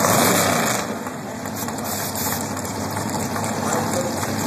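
Dragster engine idling, with a loud rushing burst in the first second that eases off.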